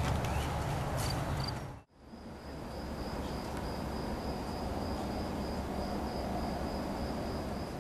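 A few footsteps over outdoor ambience, cut off abruptly about two seconds in, then crickets trilling in one steady high note over a hiss of night ambience.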